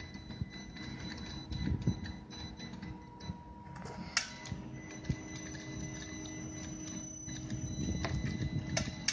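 Electric motors of a self-levelling work platform running as it rolls slowly over a raised mat, a steady whir with a thin high whine over a low rumble. Two sharp clicks, about four seconds in and near the end.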